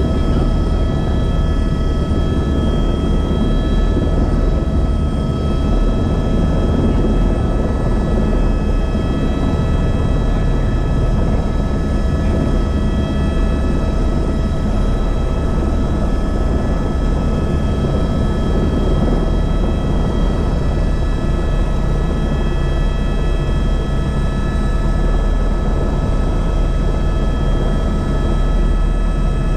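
Helicopter in flight, heard from on board: steady rotor and engine noise with several constant whining tones over it, unchanging throughout.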